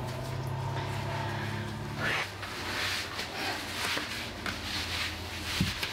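A steady low hum for about two seconds, then rustling and light shuffling as clothing (skirt and stockings) is handled and adjusted.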